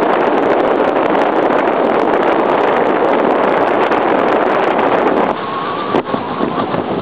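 Wind buffeting the camera's microphone: a loud, steady rush that drops somewhat about five seconds in, with a faint short knock about a second later.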